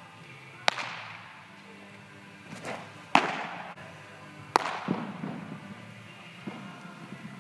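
Baseballs smacking into leather gloves during a game of catch, three loud sharp pops with fainter knocks between, each ringing on in the echo of a large indoor hall.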